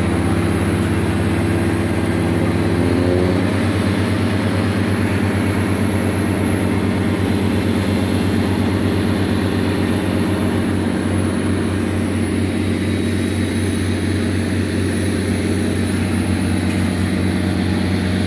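Boat engine running steadily, a deep droning hum whose pitch shifts slightly about three seconds in.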